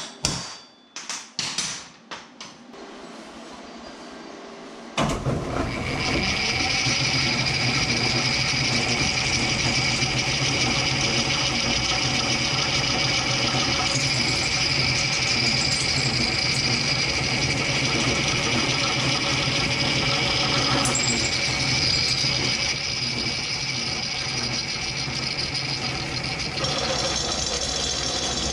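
Several hammer blows on a steel bar. About five seconds in, a drill press starts and runs steadily, its bit drilling through the steel bar.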